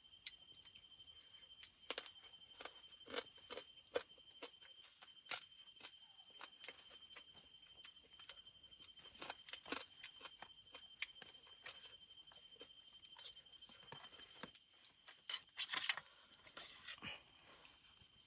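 Faint, irregular clicks and crunches of a person eating grilled frog and rice, with a louder cluster of crunches about three-quarters of the way through. A steady high-pitched tone sits under it.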